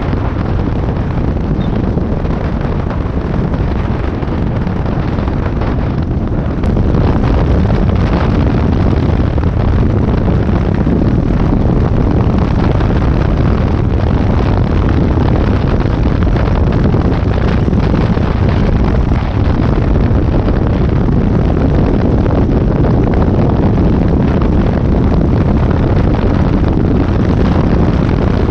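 Heavy wind buffeting on the microphone of a motorcycle at road speed, a steady low rumble of rushing air with the bike's running noise beneath it. It gets louder about seven seconds in.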